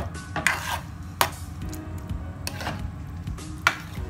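Metal spoon stirring thick kare-kare stew in a nonstick pan, with several scrapes and clinks against the pan, the sharpest about a second in and near the end, over a steady low hum.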